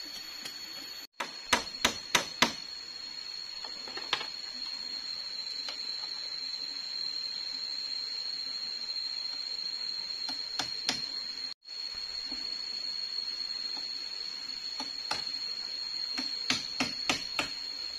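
A steady high insect drone of tropical forest, with scattered sharp knocks of work on a bamboo treehouse frame: a quick run of four or five about a second and a half in, single knocks here and there, and another run near the end.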